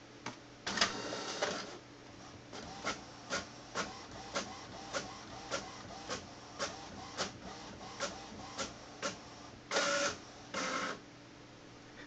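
Desktop all-in-one printer printing a page: a burst of paper-feed noise about a second in, then a steady run of mechanical clicks about two a second, and two longer bursts of motor noise near the end as the sheet is driven out.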